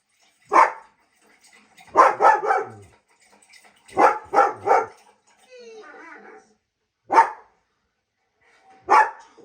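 German Shepherd barking in short bouts: a single bark, two runs of three quick barks, then two more single barks, with a fainter wavering whine-like sound about halfway through. The barking is the dog's reaction to the sounds of other dogs.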